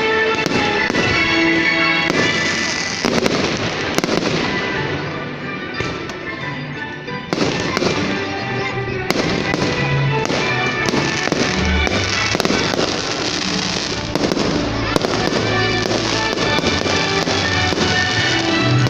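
Fireworks bursting with repeated sharp bangs and crackles over loud show music.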